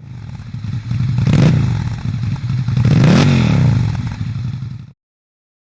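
Motorcycle engine revved twice, its pitch climbing and falling back each time. The sound cuts off abruptly near the end.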